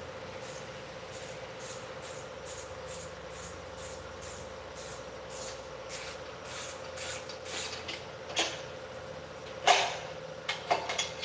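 Light metallic ticks about two a second, then a few louder clanks near the end, over a steady hum: metal engine parts and tools being handled during pushrod work.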